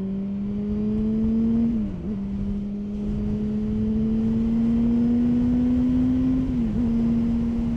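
Yamaha FZ6 S2's 600 cc inline-four running through a baffle-free exhaust under a steady light pull, its note creeping up in pitch and then dipping briefly to a lower note with an upshift about two seconds in and again near the end, over a steady rush of wind and road noise.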